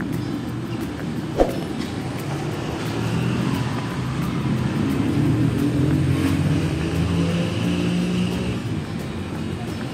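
Street traffic running along the road beside the sidewalk: a steady rumble of car engines and tyres that swells about halfway through as vehicles pass. A single short knock sounds about a second and a half in.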